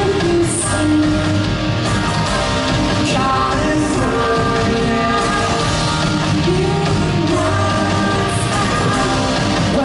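Live rock band playing, with electric guitar, bass guitar and drums under sung vocals, heard from within the crowd.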